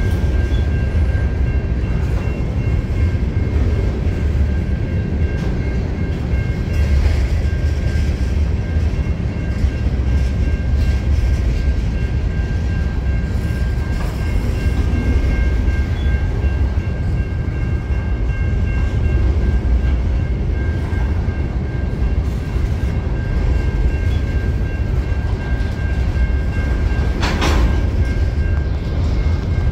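Covered hopper cars of a freight train rolling past at track level: a steady low rumble of steel wheels on rail with a thin, steady high squeal over it. A sharp clank sounds about 27 seconds in.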